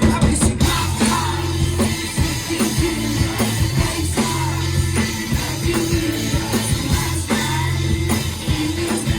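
Rock band playing live, with drums and a steady bass line. The full band comes in loud right at the start, after a quieter build-up.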